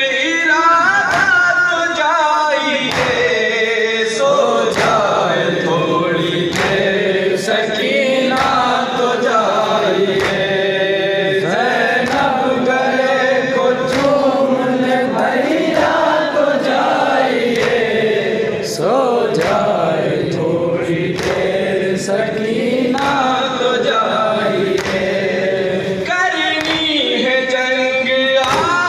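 Group of men chanting a noha in unison, with a steady beat of open-handed chest slaps (matam) keeping time under the voices.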